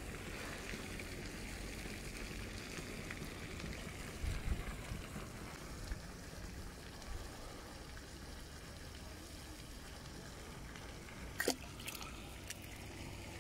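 Steady rush of running water, with a few soft low knocks about four seconds in and several sharp clicks near the end.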